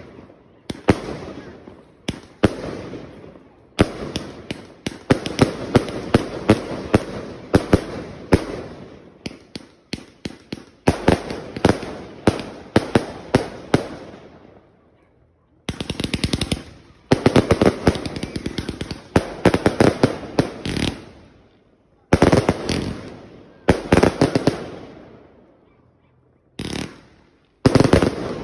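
Retribution firework going off in rapid volleys of sharp shots and bursts, each volley trailing off into echo. It pauses briefly about 14 seconds in and again near the end before firing again.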